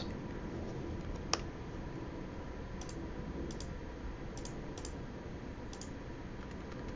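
Computer mouse clicking: one sharper click about a second in, then several light clicks in quick pairs through the rest, over a steady low hiss.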